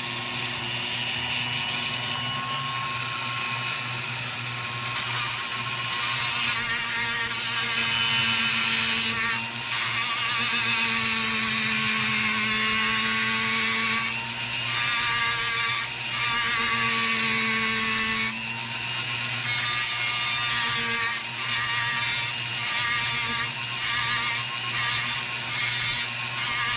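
Small high-speed rotary grinding tool running against metal with a steady motor whine and a harsh grinding hiss. The grinding breaks off briefly several times, more often toward the end, as the tool is lifted off the work.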